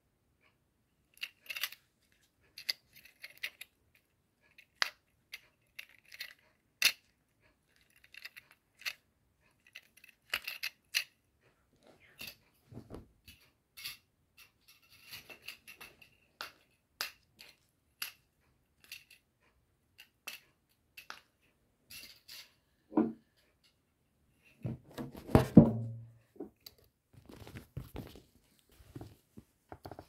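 Silicone pop-it fidget toy (yellow octopus) being pressed and handled: a scattered run of soft pops and clicks at an uneven pace. Near the end comes a louder, longer rustling thump as the toy is moved about.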